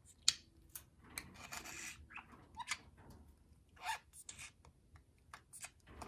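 Budgerigar's beak nibbling and scraping at a hanging chew toy of coloured wooden sticks: an irregular string of small clicks and scratchy rasps, the sharpest click just after the start.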